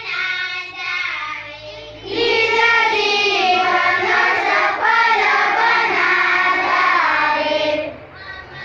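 A group of young children singing a school prayer together in unison. The singing gets much louder and fuller about two seconds in, then breaks off near the end.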